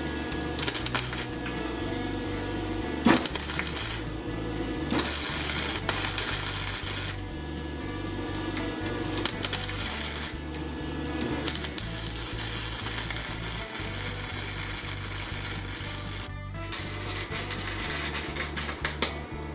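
MIG welder arc crackling and sizzling in several bursts of one to four seconds each, with short pauses between, as welds are laid on the corners of a metal frame. A sharp crack about three seconds in.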